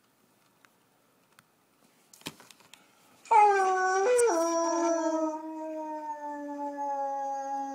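Dog howling: one long howl that begins about three seconds in, drops in pitch about a second later and then holds steady. A few faint clicks come just before it.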